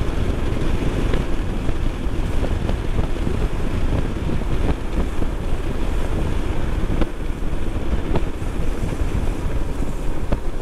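Wind buffeting the microphone while riding a Honda PCX scooter at about 50 km/h on a wet street, with the scooter's running and tyre noise mixed in as a steady rumble.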